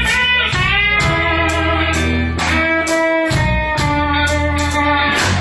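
Live electric blues band playing: a lead line of sustained, bending notes over electric bass and drums, with a steady cymbal beat.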